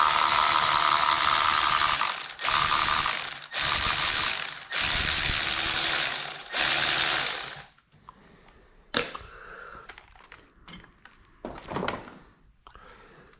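Power ratchet spinning a socket in five loud bursts of whirring with short pauses, as fasteners come out of the number 1 cylinder position. In the last part only a few light clicks and taps of tools.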